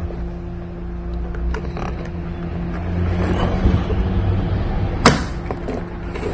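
Rubber grommet caps being worked out of a plastic cowl panel by hand: creaking and rubbing, with one sharp snap about five seconds in. A steady low hum runs underneath.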